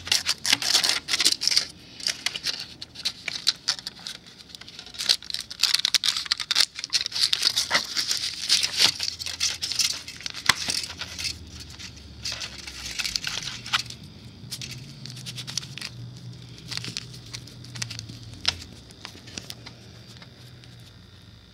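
Foil wrapper being peeled and torn off a chocolate cigar by hand, a rapid run of crinkling and crackling that is busiest over the first half and grows sparser and quieter later.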